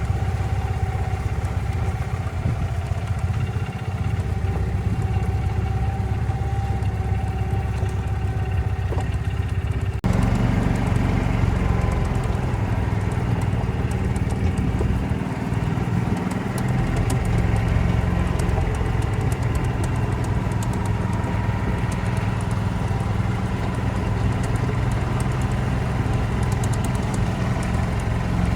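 Golf cart driving, a steady low rumble of motor and wheels. About ten seconds in the sound shifts abruptly and gets a little louder.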